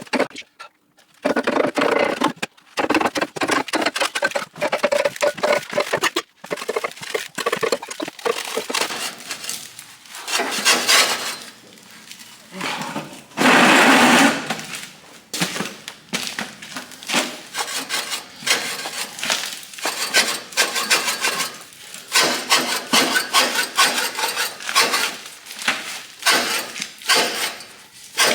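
Repeated knocks and scraping of hand tools on a steel fire tube as it is worked loose from a traction engine boiler. A louder rasping stretch about halfway through lasts a second or so.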